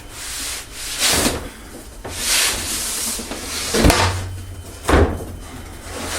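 Wet rag being wiped in several swishing strokes across a board to clear off dust, with a couple of brief knocks about four and five seconds in.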